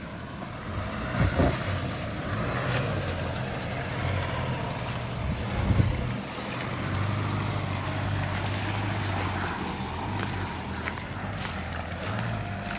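Four-wheel-drive engine running steadily at low revs while crawling over the track. A couple of knocks stand out, one about a second and a half in and another near the middle.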